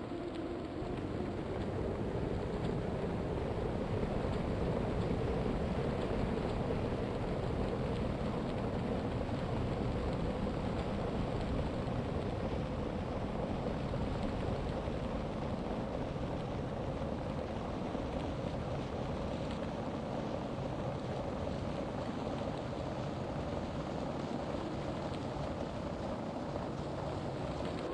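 Steady rushing wind and rumbling road noise of a bicycle ridden at speed, with a faint steady hum.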